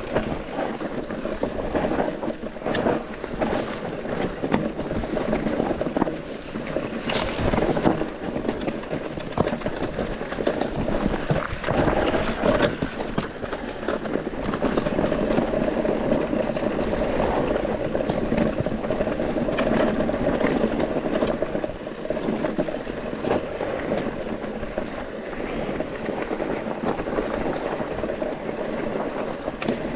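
Mountain bike descending a trail: a steady rush of wind and tyre noise, broken by sharp knocks and rattles of the bike over rough ground, a few of them louder about 3, 7, 8 and 12 seconds in.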